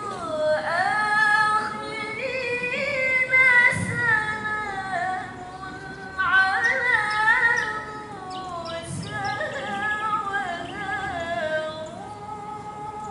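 A young woman's solo voice in melodic Qur'an recitation (tilawah) through a handheld microphone: long held notes that glide and waver up and down in ornamented phrases, with a short breath pause about halfway through.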